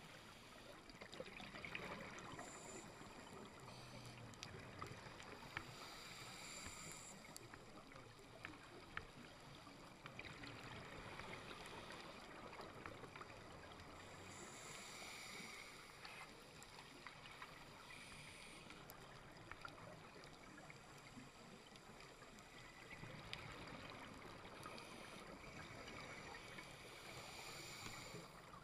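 Faint underwater sound picked up by a diver's camera on a coral reef: a steady muffled hiss that swells now and then, with scattered faint clicks.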